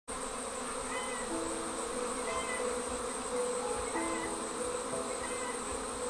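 Steady, dense buzzing of a honey bee swarm clustering on a tree after leaving its hive, with faint musical notes underneath.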